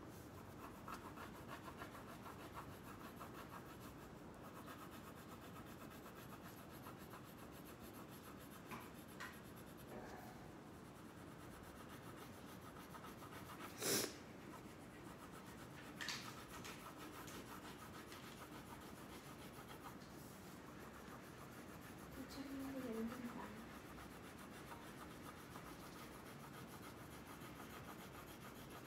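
Crayon scribbling on paper: quick back-and-forth shading strokes, a faint steady rubbing. A sharp click about halfway through is the loudest sound, with a smaller one two seconds later and a short low tone near the end.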